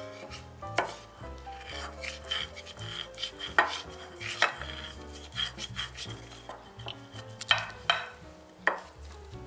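A wooden spoon stirring and scraping thick, settled potato starch paste in a glass bowl, with several sharp clicks of the spoon against the glass. Soft background music plays underneath.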